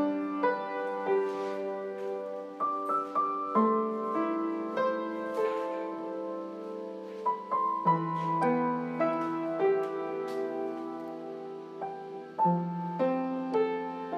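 Background piano music: a slow, gentle melody of single notes and chords, each struck and left to ring into the next.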